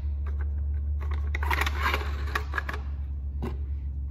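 Plastic clicks, scraping and rattling as 40mm grenade rounds are fed by hand into the loading port of a 3D-printed pump-action China Lake replica grenade launcher, over a steady low hum.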